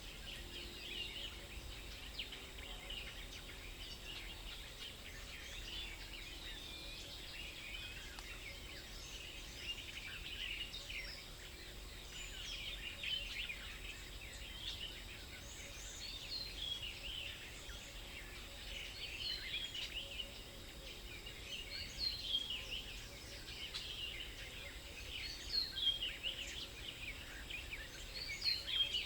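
A chorus of small songbirds chirping and singing, many short overlapping calls, a lot of them falling in pitch, with louder bursts in the last third. A faint steady low rumble runs underneath.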